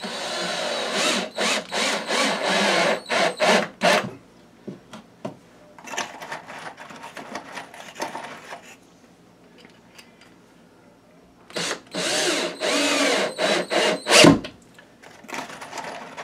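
Cordless drill driving drywall screws through a sheetrock patch into the wall, in three runs of a few seconds each with pauses of about two seconds between them, and a short fourth burst near the end.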